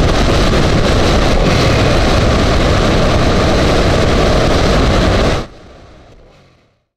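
Wind rushing over the microphone of a camera on a moving motorcycle, with engine and road noise underneath. It drops abruptly about five and a half seconds in, leaving a faint remainder that fades away.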